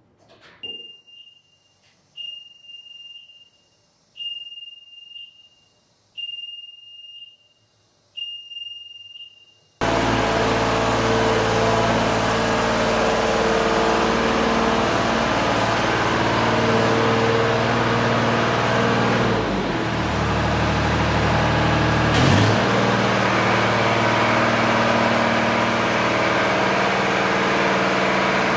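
A battery-powered scissor lift's motion alarm beeping, one high beep about every two seconds, five times, with hardly any machine noise. Then, abruptly, a Genie GS-3390 diesel scissor lift's engine running loud and steady, its note dipping briefly with a short knock about two-thirds of the way through.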